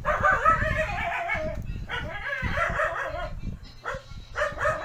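A dog crying in three drawn-out, wavering calls, each a second or so long, with a pause between them.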